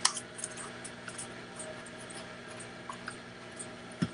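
Faint handling noises of a cardboard toilet paper roll turned in the hands: small scattered clicks and ticks over a steady low room hum, with a sharp click right at the start and a short low knock near the end.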